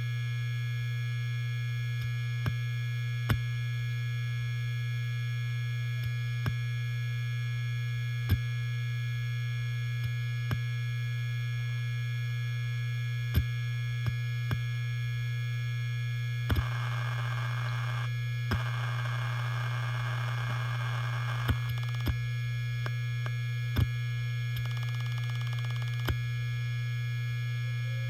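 Helium-filled hard disk drive spinning with a steady low hum and high whine, its heads clicking irregularly every second or two as they seek. From about halfway through, a few seconds of dense, rapid seek chatter.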